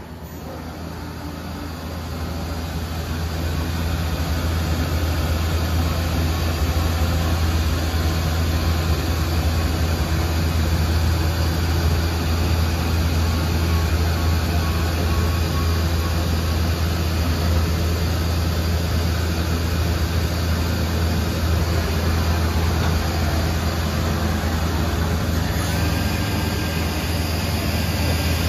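Mazak VCC 5X 20K 5-axis vertical machining center running under power: a steady low hum under a broad hiss, swelling over the first few seconds and then holding level.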